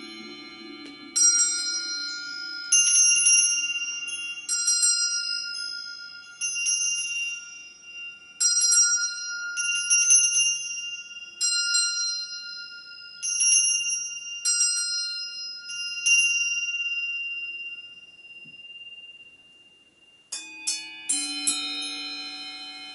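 A small brass handbell is rung in separate strokes, roughly one or two every second and a half, each strike leaving a high, bright ring that slowly decays. The last ring fades out about three-quarters of the way through. Near the end, a different, lower-pitched metal instrument is struck a few times and rings on.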